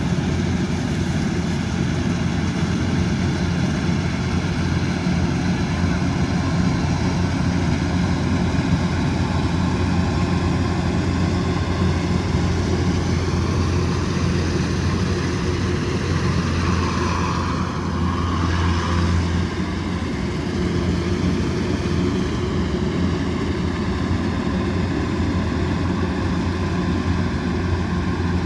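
Kubota DC108X combine harvester's diesel engine and threshing machinery running steadily under load, a continuous low drone with a brief change in tone about two-thirds of the way through.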